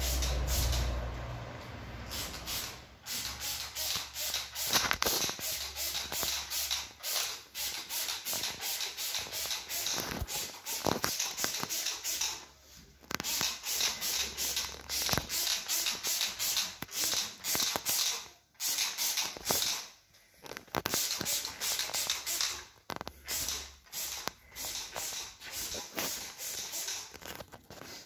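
Background music with a fast, steady beat and a deep bass that comes and goes.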